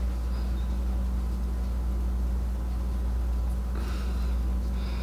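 Steady low background hum of a small room, with a faint soft rustle about four seconds in.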